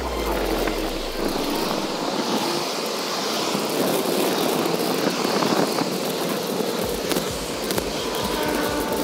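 Steady riding noise from a bicycle: tyres rolling and rattling over pavement, with wind on the microphone and cars passing on the road alongside.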